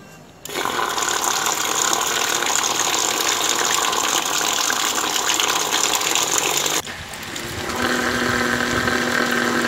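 Small 12-volt DC motor driving a homemade centrifugal water pump, switched on about half a second in: steady motor whine mixed with water gushing and spraying. The sound drops sharply about seven seconds in, then a steady whine with a clearer pitch returns about a second later.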